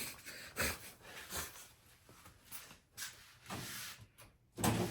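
Hands working a bicycle chain and an old chain tool: scattered short clicks, rattles and rustles of metal being handled, with a louder knock near the end.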